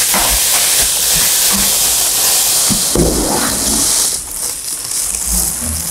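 Rustling and crinkling of packaging as the contents are lifted out of the top of a box, a dense hissing noise with a few soft knocks. It eases somewhat about four seconds in.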